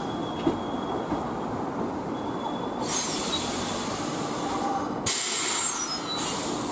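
Air brakes of a stopped Sanyo Electric Railway train letting out compressed air in sudden loud hisses about three seconds in, again at about five seconds, and once more near the end. It is the loud brake exhaust heard when the driving end is switched over.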